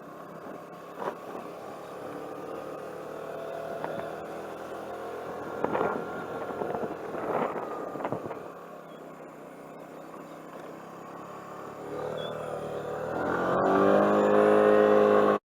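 Vehicle engine running while driving, with a few short knocks along the way. Near the end it rises in pitch and gets much louder as it accelerates, then cuts off suddenly.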